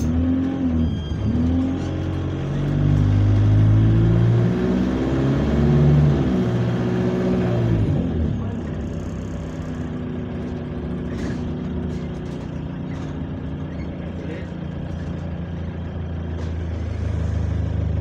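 Bus engine heard from inside the passenger cabin, pulling away hard from a stop. Its pitch climbs and drops several times as the gearbox shifts up over the first eight seconds, then it settles to a steadier, quieter run.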